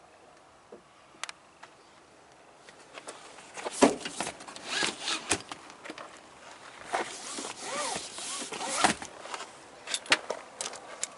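Handling noise: a run of sharp clicks and knocks with rustling, and a brief squeak about seven to eight seconds in.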